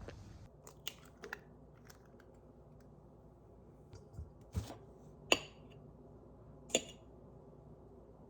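Several separate sharp clicks and taps, as of small objects being handled, the loudest about five seconds in, over a faint low steady hum.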